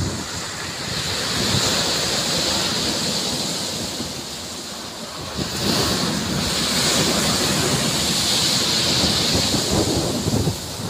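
Surf breaking and washing up a pebble beach in repeated waves, the wash swelling louder about five and a half seconds in, with wind buffeting the microphone.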